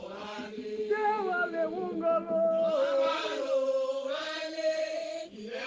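Chanted singing: a voice holding long notes and sliding between pitches.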